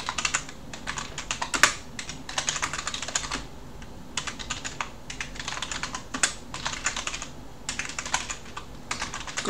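Typing on a computer keyboard: quick runs of keystrokes broken by short pauses between words.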